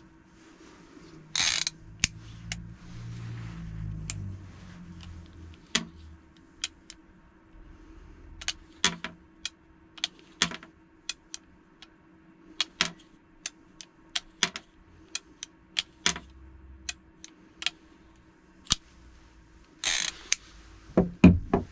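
Ruger Single Six single-action revolver's cylinder and action clicking as the cylinder is turned chamber by chamber through the loading gate, with sharp clicks at irregular intervals. There are a couple of brief rustles, and a few soft knocks near the end as the gun is set down on its holster.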